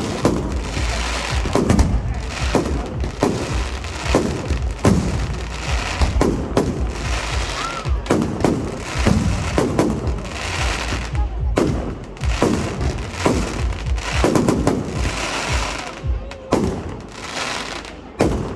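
Fireworks display: a dense, unbroken run of bangs and crackles, several a second, each with a rolling echo, over a continuous low rumble.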